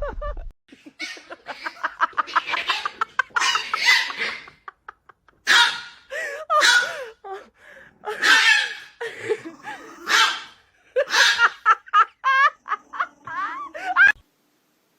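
People laughing hard in repeated bouts of pulsing laughter, stopping shortly before the end.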